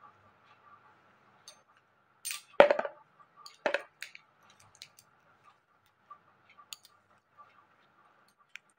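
Scattered light clicks and clinks of bangles and comb as hair is handled and combed, with two louder brushing knocks about two and a half seconds in and again a second later.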